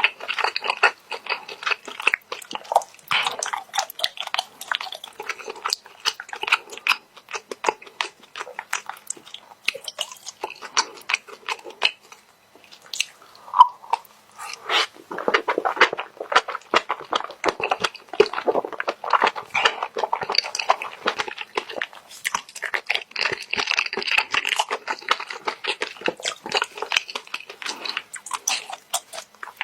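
Close-miked chewing and mouth smacking of a person eating spicy stir-fried squid, a dense run of wet clicks, with a short pause and one brief louder pop about halfway through.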